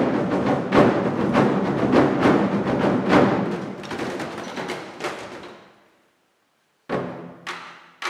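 Twenty-Four Festive Drums ensemble: many large Chinese drums struck with sticks in a dense, fast roll that fades away over about five seconds. After a second of silence, single loud unison strikes come twice near the end.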